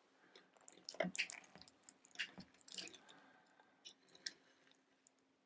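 Knife and fork cutting into a soft steak and kidney pudding on a plate: scattered quiet scrapes, soft squelches and light clicks of cutlery against the plate.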